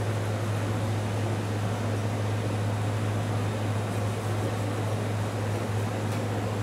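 Steady low machine hum, like a fan or motor running, over a constant hiss of background noise.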